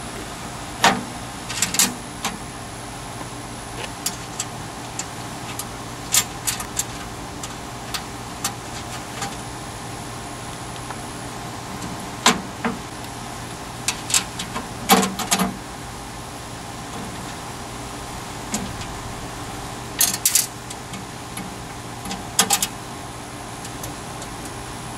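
Irregular metal clicks and clanks, some in quick clusters, as a blocker plate and thermostat bracket are handled and fitted into an air machine's sheet-steel enclosure, over a steady hum.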